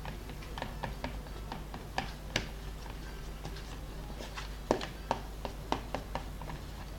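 Slime mixture being stirred slowly in a bowl: irregular light clicks and taps of the stirring utensil against the bowl, with a few sharper knocks from about two seconds in.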